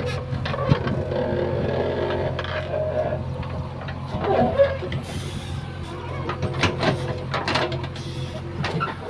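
JCB 3DX backhoe loader's diesel engine running steadily under load, with scattered metallic clanks and knocks from the digging gear.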